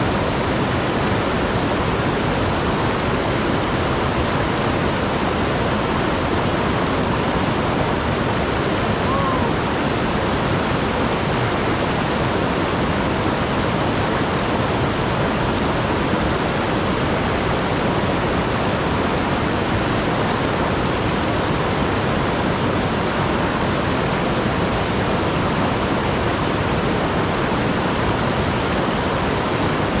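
Waterfall and its stream rushing steadily, the water running high.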